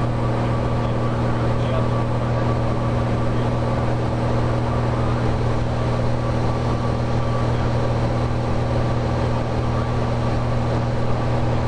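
Cessna 182's piston engine and propeller running steadily in flight, a constant low drone heard inside the cabin.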